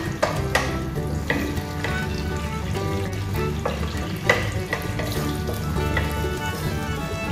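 Onion pieces frying in hot oil in a pot, with a steady sizzle. A wooden spatula stirs them and knocks against the pot now and then, loudest a little past four seconds in.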